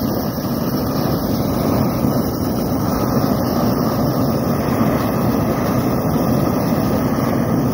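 Long-handled propane wand torch burning with a steady, unbroken rushing sound. Its flame is playing on a railroad switch frog to thaw frozen coal and ice out of the flangeway.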